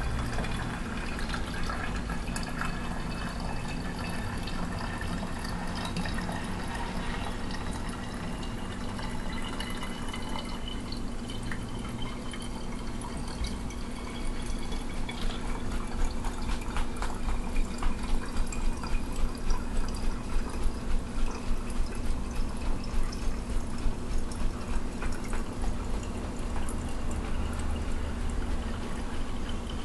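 Water poured from a glass pitcher through a funnel into a plastic spray bottle: a steady trickle whose pitch rises slowly as the bottle fills. Through the middle part the flow pulses about twice a second.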